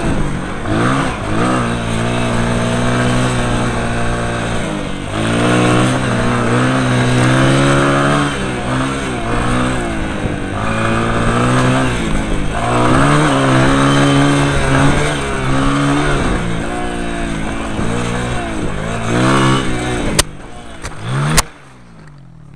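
Off-road motorcycle engine running and revving up and down through the gears on a gravel track, with a rushing noise over it. Near the end, two sharp knocks about a second apart as the bike goes down in a fall, and then the engine sound drops away.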